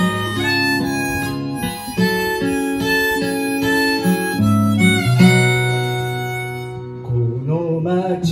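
Harmonica played from a neck rack over acoustic guitar accompaniment: a melody of sustained notes, ending in one long held note that fades away near the end.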